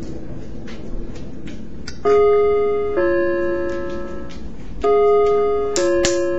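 Doorbell chime ringing a falling two-note ding-dong twice: once about two seconds in and again about three seconds later. Each note rings and fades. Light ticks come before the first chime, and a sharp click comes during the second.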